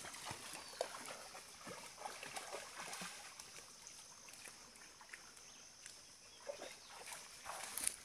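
Faint trail ambience with scattered soft splashes and sloshes from a dog moving through a muddy puddle, over a steady faint high hiss.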